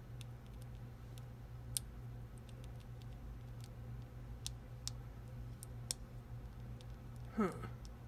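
Scattered light clicks and ticks of small metal jewelry pieces being handled, a few single clicks with a second or more between them, over a steady low hum.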